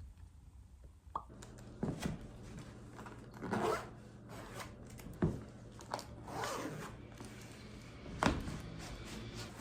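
Handling noises: a click about a second in, then irregular short rustles, scrapes and clicks, like small objects being picked up, opened and set down.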